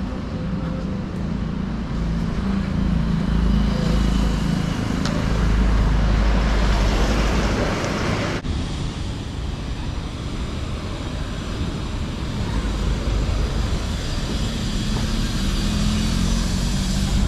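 Road traffic: motor vehicle engines running and passing, with a steady low hum, louder from about four to eight seconds in and again near the end.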